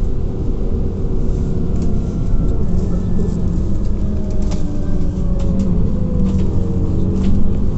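Scania Citywide CNG city bus heard from inside the passenger cabin while driving: a steady low drone from the engine and driveline, with a whine that slowly falls in pitch through the middle, and a few sharp rattles or clicks from the bodywork.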